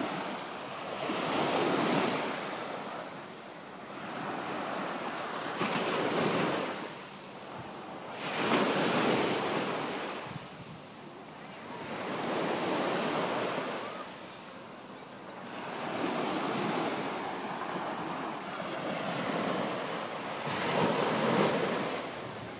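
Small waves breaking and washing up a sandy beach, the surf swelling and fading about every four seconds.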